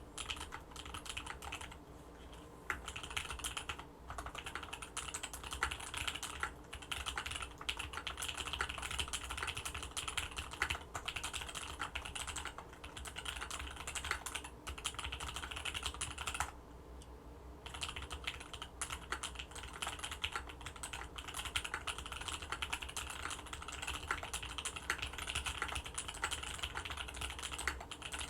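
Typing on an Orion V3 custom mechanical keyboard with Tealios linear switches on an FR-4 plate: fast, steady keystrokes with a couple of short pauses.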